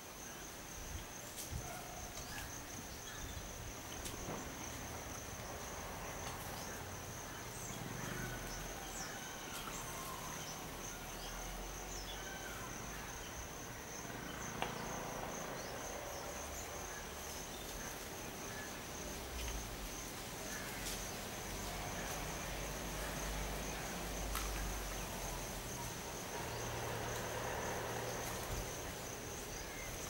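Insects droning: one steady, high-pitched buzz that holds the same pitch throughout.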